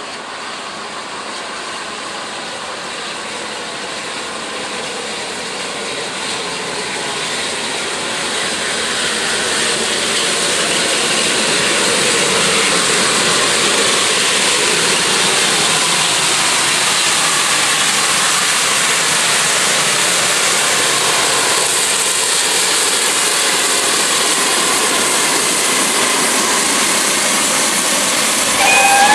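GWR Castle-class 4-6-0 steam locomotive 5043 'Earl of Mount Edgcumbe' and its train approaching and running through a station: a steady rushing noise that grows louder over the first dozen seconds as it nears, then holds. A short whistle-like tone sounds near the end.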